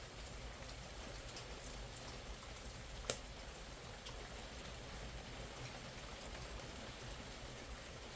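Steady rain falling, with scattered small crackles and one sharp pop about three seconds in from a fire burning in the rain.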